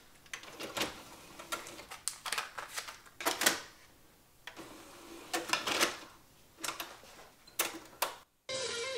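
Irregular mechanical clicks and clunks from a Technics RS-DC10 Digital Compact Cassette deck as its front panel is worked and a DCC cassette goes into the tray and is loaded. Near the end the sound cuts out and guitar music starts.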